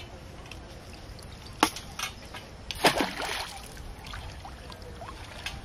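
Long-handled scoop net plunged and swept through shallow pond water: a sharp splash about one and a half seconds in, then a bigger, longer splash and slosh near the middle, with a few small splashes and drips after.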